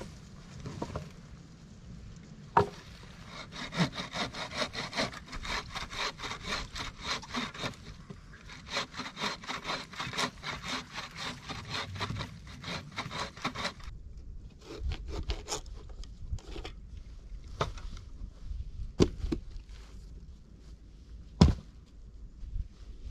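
Wooden-framed bow saw cutting through a log in quick, even back-and-forth rasping strokes, with a short pause about halfway. The sawing stops about 14 seconds in, and a few sharp wooden knocks follow.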